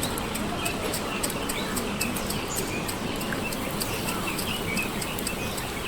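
Small birds chirping in quick, repeated short calls over a steady outdoor hiss, with frequent sharp little clicks throughout.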